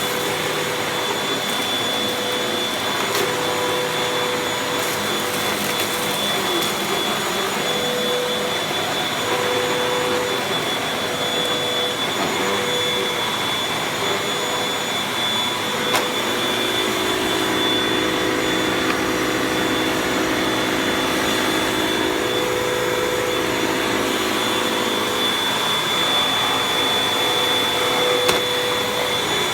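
Hoover WindTunnel UH70120 upright vacuum cleaner running steadily with a constant motor whine, with one brief click about halfway through.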